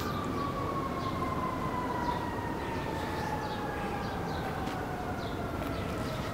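Airplane passing overhead: a steady engine whine falling slowly and evenly in pitch over a low rumble.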